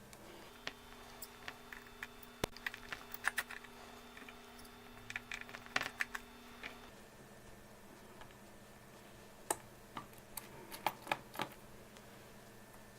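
Small, sharp, irregular clicks and taps of tools and metal parts as the metal clips holding a tablet's LCD screen are undone, some coming in quick clusters. A faint steady hum runs under the first half and stops about seven seconds in.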